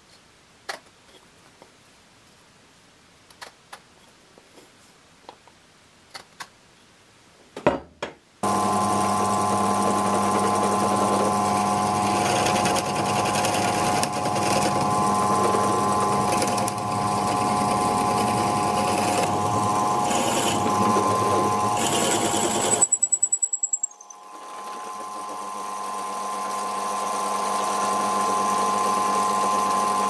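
Bench drill press motor running steadily with a steady whine as it predrills a hole in a wooden block. It starts about eight seconds in, after a few light clicks and taps from handling the block. Near two-thirds through it drops out briefly after a quick rattle of clicks, then builds back up.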